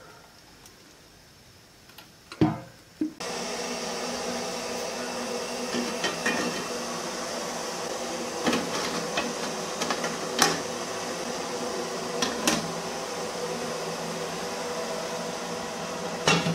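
Metal idli plates clanking as they are stacked into an idli steamer: a few separate sharp knocks a couple of seconds apart, and a clatter near the end as the lid goes on. About three seconds in, a steady hum sets in abruptly and runs under the clanks.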